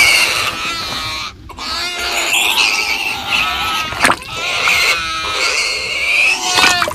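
A small creature squealing and grunting like a piglet in several short pitched cries, with a splash of liquid into a bowl about four seconds in.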